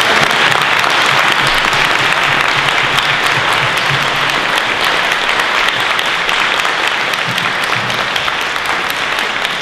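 Audience applauding: many hands clapping in a dense, steady patter that eases off slightly near the end.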